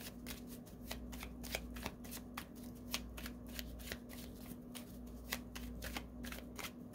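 A deck of tarot cards being shuffled by hand: a continuous run of short, irregular card flicks and slaps, several a second, over a faint steady hum.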